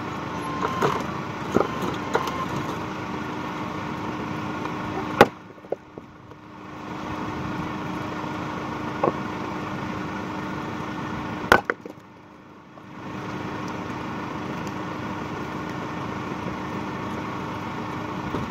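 Axe splitting firewood blocks on a chopping stump: two sharp strikes about six seconds apart, with a lighter knock between them and a few small knocks near the start. A steady hum runs underneath.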